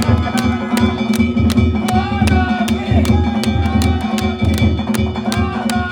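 Danjiri festival narimono: a taiko drum and hand-held gongs struck in a steady, fast rhythm of about four strokes a second.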